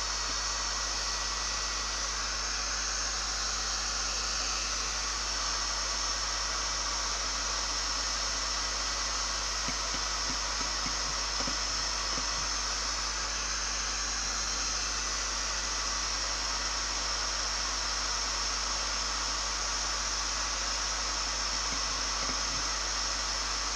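Resanta handheld heat gun running steadily on its first speed setting, an even hiss of fan and blown hot air, as it heats a seized angle-grinder disc nut to loosen it.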